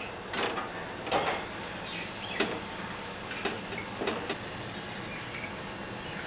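Cooking utensil scraping and tapping against a pan: about half a dozen short, separate strokes, unevenly spaced over the first four seconds or so.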